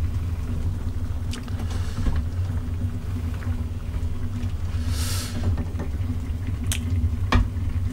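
Steady low rumble and hum, with a few light clicks and a brief scrape about five seconds in, as chopsticks stir ramyeon noodles in a metal pot.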